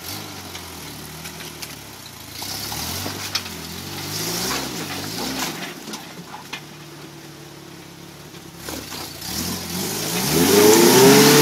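Off-road truck engine revving up and down repeatedly as it crawls the trail, with a few sharp knocks along the way. The hardest rev, rising in pitch, comes near the end.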